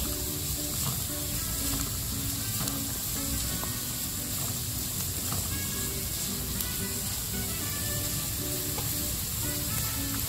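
Diced carrots, green capsicum and onion sizzling steadily in hot oil in a pan as they are sautéed, stirred and tossed with a spatula. Soft background music plays underneath.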